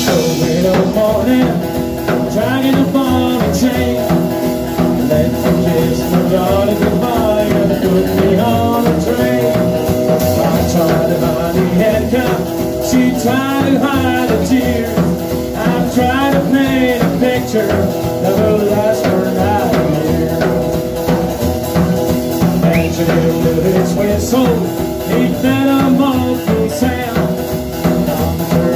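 Live rock-and-roll band playing: male lead vocals over strummed acoustic guitar, Telecaster-style electric guitar, upright double bass and drum kit, loud and continuous.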